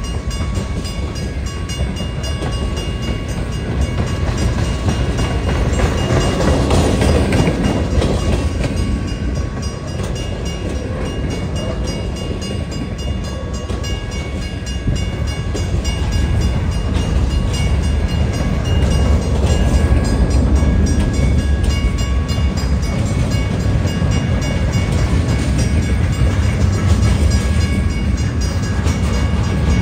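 Freight train of tank cars, a covered hopper and flatcars rolling past: a steady rumble of steel wheels on rail, with a few faint steady high tones above it.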